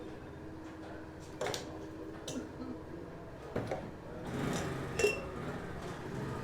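A few light clicks and knocks of small hard objects being handled, over a low steady hum.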